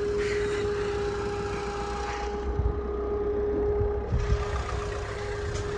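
Suzuki Swift hatchback's engine running at low speed as the car rolls in close by, under a steady hum, with a few low thumps about halfway through.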